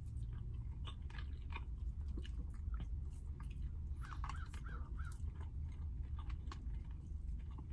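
A man chewing a mouthful of pot roast and baked potato, with small clicks and scrapes of a plastic fork in a plastic bowl, over a low steady hum.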